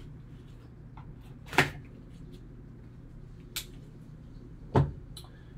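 Gloved hands handling a cardboard trading-card box on a tabletop: two sharp knocks about three seconds apart, with a lighter click between them, over a low steady hum.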